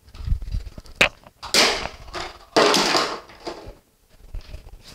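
Handling noises: a few low bumps, a sharp click about a second in, then two longer rustles.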